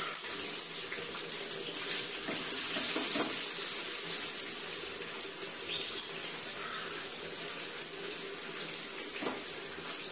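Masala-coated mackerel sizzling as it shallow-fries in oil in a pan: a steady hiss.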